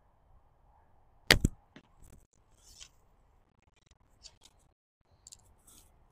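Toelke Super D longbow shot: the bowstring slaps sharply on release about a second in, a quick double crack. A few fainter clicks and rustles follow.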